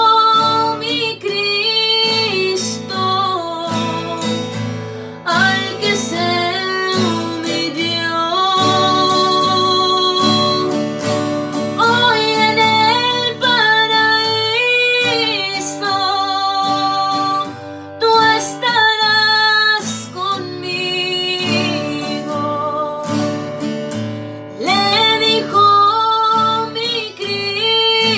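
A woman singing a melody with long held, wavering notes, accompanied by an acoustic guitar.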